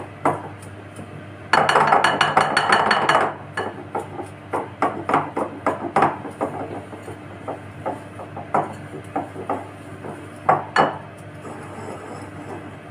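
A hand beating ghee and powdered sugar together in a glass bowl, creaming the mixture: knocking and clinking against the glass. There is a fast run of knocks for about two seconds near the start, then slower, irregular knocks.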